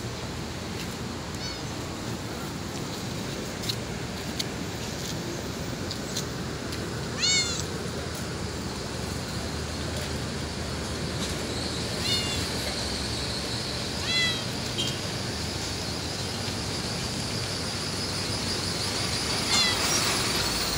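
Domestic cat meowing: about five short meows several seconds apart, the loudest about seven seconds in, over a steady background hiss.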